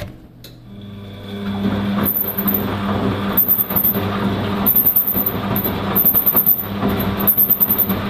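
Bosch WFF 1201 washing machine's motor starts turning the drum about a second in, after a click. From about two seconds in, a very high-pitched squeal comes in short bursts roughly once a second. The squeal appears only when the tub holds a lot of rinse water, and the owner wonders whether the drive belt is slipping.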